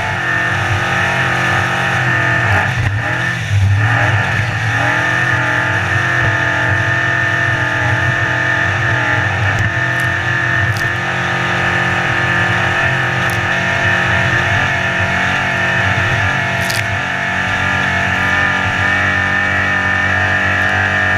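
Racing powerboat's engine running hard at speed, its pitch wavering a few seconds in and then holding steady, over a rush of water and wind, with a few sharp knocks later on.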